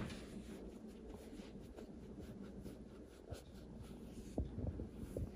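A hand stroking and rubbing a greyhound's head and short fur: faint soft rustling, with a few light bumps in the second half.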